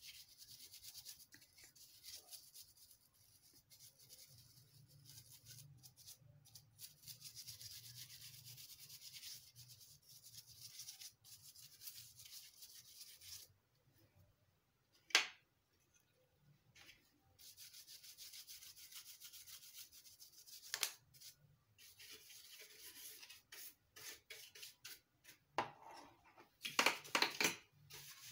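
Paintbrush bristles sweeping dust off an HP ScanJet G3110 scanner's circuit board: rapid, scratchy brushing strokes, stopping and starting. A sharp click about halfway through, and a few louder knocks near the end.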